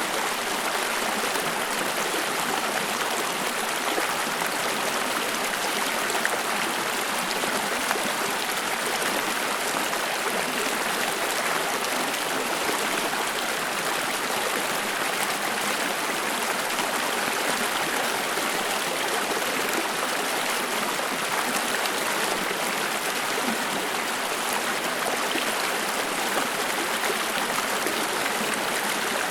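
Stream of water flowing steadily, a continuous rushing and trickling over rocks with no pauses.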